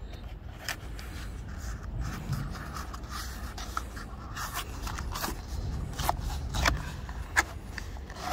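Hands working a Mini convertible top's rear channel: irregular scrapes, rubbing and small plastic clicks as a trim part is worked out of its groove, with a sharper knock at the very end.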